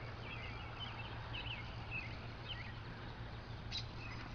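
Small birds chirping in short scattered calls over steady outdoor background noise with a low hum, and one brief click near the end.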